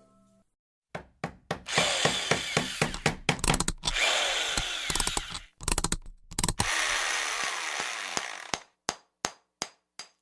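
Tool sound effects: an electric drill whirring in short runs, mixed with rapid knocks and clicks, then a few single clicks spaced out near the end.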